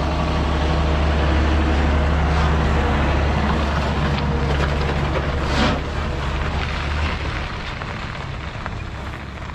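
John Deere tractor engine running with a steady low drone as it drives past towing a Broughan silage trailer, with a brief knock about five and a half seconds in. The engine drone fades as the tractor pulls away, from about seven seconds in.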